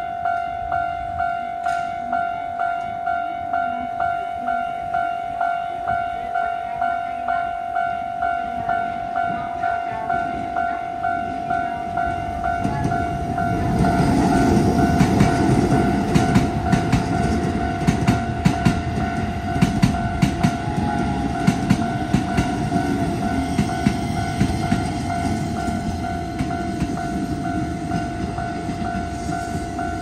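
Japanese level-crossing alarm bell ringing its two-tone electronic ding in a steady rhythm of about one and a half strikes a second, the signal that the crossing is closed for a train. From about 13 seconds in, a Keisei commuter train passes over the crossing, and its rumble and the clack of wheels over rail joints rise over the bell before easing off near the end.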